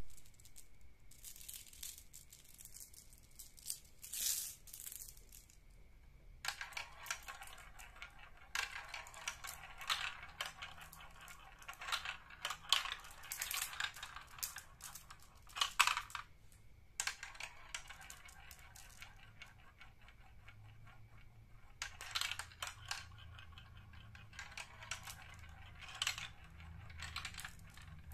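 Glass marbles rolling and rattling down a plastic marble-run track, clicking as they drop through the tubes and spin in the funnels. The rattling comes in long runs with two short pauses.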